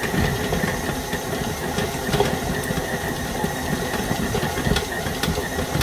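KitchenAid stand mixer running at a raised speed, its beater kneading a stiff dough in the steel bowl: a steady motor whine with irregular low thudding.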